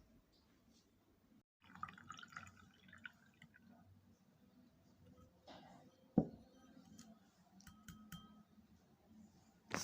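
Quiet kitchen handling of glassware and liquid while a drink is prepared: a short spell of liquid sound, a single sharp knock about six seconds in, and a glass clink that rings briefly near the eighth second.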